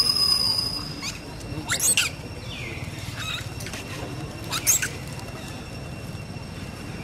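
Macaques giving short, high-pitched squeaks, a pair about two seconds in and another pair near five seconds in, after a held high squeal fades out in the first second.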